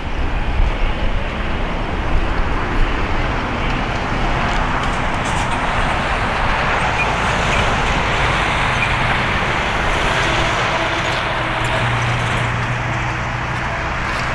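Steady jet noise from an Airbus A330-300's two Rolls-Royce Trent 700 turbofans at climb thrust just after takeoff, a broad, even rumble with no change in level.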